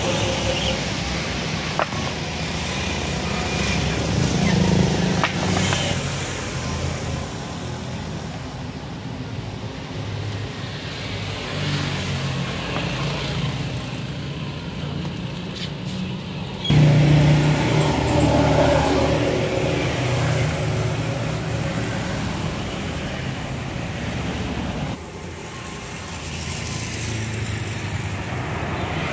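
Street traffic: a steady wash of passing vehicle engines. The level jumps suddenly about two-thirds of the way through and drops again a few seconds before the end.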